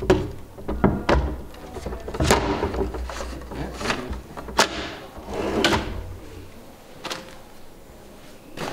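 Wooden drawer being fitted onto metal drawer slides and pushed shut: a run of sharp knocks and clicks as it is seated, with two longer sliding rattles of the slides.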